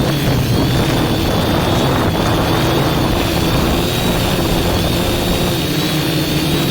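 A multirotor drone's electric motors and propellers whine steadily in flight, their pitch wavering slightly, over a rush of wind noise.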